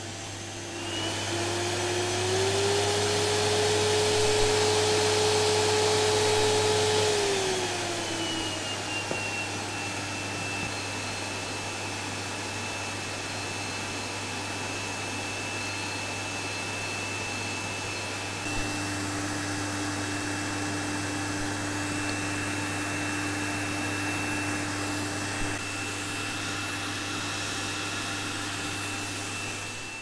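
Canister vacuum cleaner running and drawing air through a homemade cyclone separator. About a second in, its motor pitch rises and it gets louder with a rush of air. Around eight seconds in the pitch falls back, and it then runs steadily.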